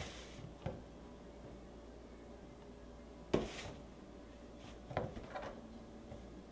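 A cat climbing into a cardboard box: a cardboard thump a little over three seconds in, the loudest sound, then a couple of lighter knocks and scrapes as it moves about inside the box.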